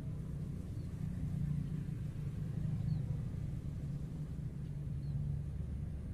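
Steady low rumble with a few faint, short, high chirps over it.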